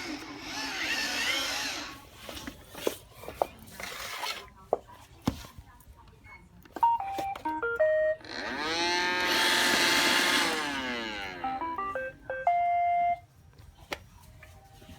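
iRobot Roomba robot vacuum playing short runs of stepped electronic beeps, the second ending in a held tone, with a loud motor whir that sweeps in pitch between them. This belongs to its Error 1 routine, which tells the user to move the robot to a new location and restart it.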